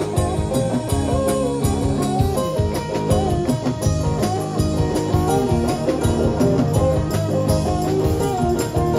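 Live rock band playing: an electric guitar lead with bending, sliding notes over a driving drum kit.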